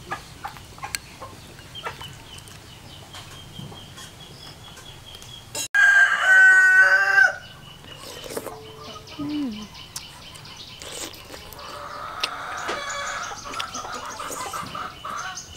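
A rooster crowing once, loudly, about six seconds in, the call lasting about a second and a half; a quieter, longer fowl call follows near the end. A faint steady high tone runs underneath.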